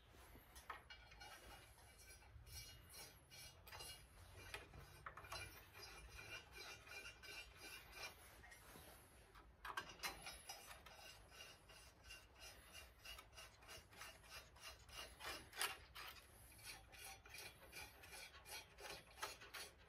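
Faint scraping and light clicking of steel bolts being threaded in by hand, fixing a heat shield back onto an exhaust manifold, with metal rubbing on metal.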